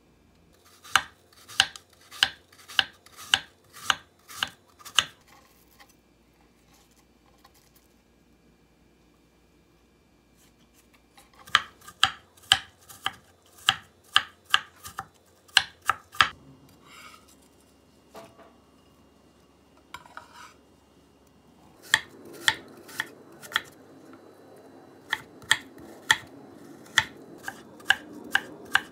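A knife cutting apples on a wooden cutting board: quick runs of sharp knocks of the blade striking the board, about two a second. The runs come in three bursts with short pauses between.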